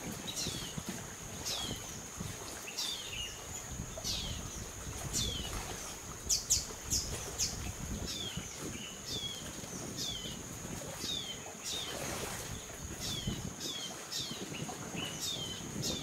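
Rainforest ambience: a bird repeats a short, high, falling call over and over, more than once a second, with a few louder, sharper notes about six to seven seconds in. A steady high-pitched whine runs underneath.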